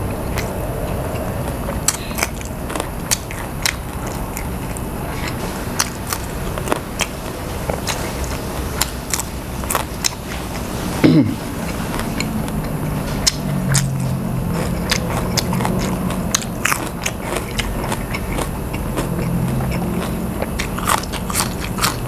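Chewing and biting food, with many short crisp crunches of grilled pork and raw vegetables. About halfway through there is one louder short sound whose pitch falls.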